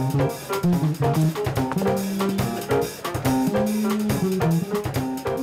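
Background music: a band with drum kit, bass and guitar playing to a steady beat.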